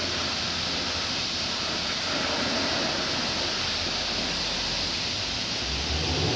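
Chevrolet car engine running steadily under a rushing noise, being checked for a misfire, then beginning to rev near the end. It runs without a misfire.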